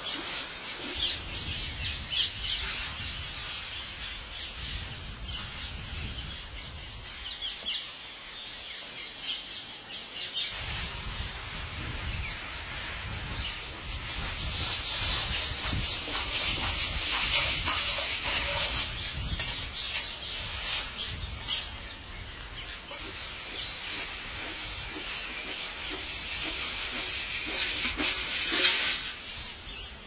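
A large flock of wild parrots calling at once: a dense, overlapping high-pitched chatter, swelling louder past the middle and again near the end, over a low rumble.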